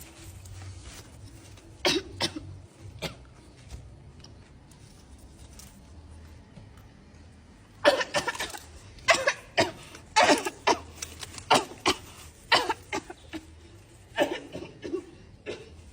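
Coughing in bouts: a couple of coughs a couple of seconds in, then a long run of repeated coughs from about eight seconds in, and a few more near the end.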